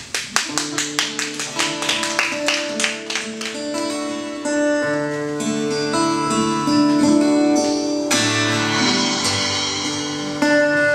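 Acoustic guitar opening a song live, quick strummed strokes at first, about six a second, then held, ringing picked notes. The sound grows fuller about eight seconds in.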